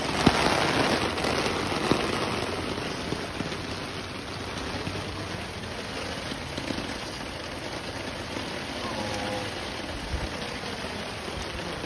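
Steady rain falling, heard from under an umbrella, louder for the first couple of seconds.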